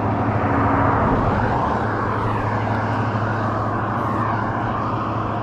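Steady engine-like drone with a constant low hum and a slowly wavering higher rush, like nearby traffic or an aircraft passing.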